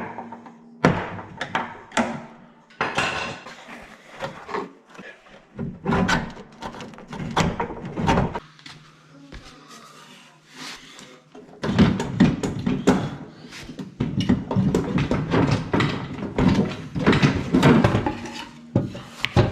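Irregular metal knocks, clanks and scrapes from a 1959 Vespa scooter's engine being worked out of its frame once the mounting bolt is pushed out. There is a sharp knock right at the start, and the clatter gets busier about two-thirds of the way through.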